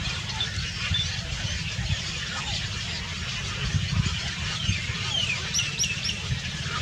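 Several small birds chirping and twittering continuously, with three quick, sharp, high calls in a row near the end, over a low steady rumble.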